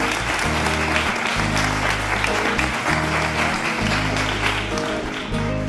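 A small group applauding over background music whose low notes change about once a second.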